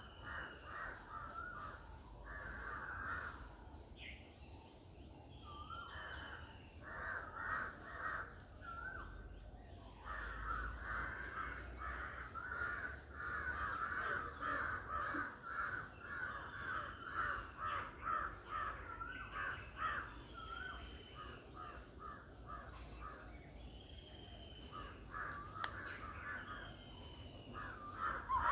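Harsh, chattering bird calls, many short notes overlapping, coming in bouts and busiest in the middle, with short falling whistles now and then.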